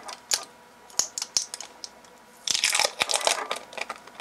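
Hard plastic battery-pack parts being handled and pulled apart by hand. There are a few sharp clicks, then about a second of dense crackling halfway through, then a few more clicks.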